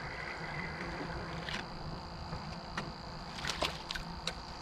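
A spinning reel being cranked as a small trout is brought in, giving a handful of sharp clicks that come more often toward the end, over a steady low rumble.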